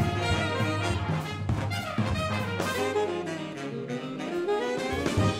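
Background music: an upbeat, jazzy tune led by brass. The bass drops away for about a second near the end, then comes back.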